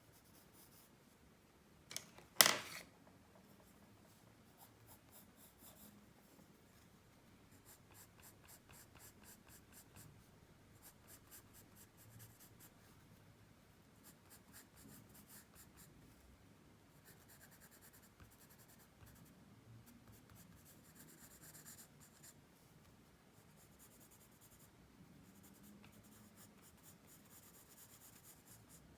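Pencil shading on paper: runs of quick, light back-and-forth strokes, each run lasting a second or two. A single brief loud knock about two seconds in.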